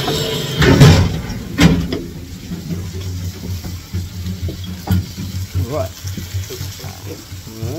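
Clatter of plastic food containers being handled and set down on a steam locomotive's wooden cab floor, with two louder knocks about a second in and lighter taps after, over a steady low hum.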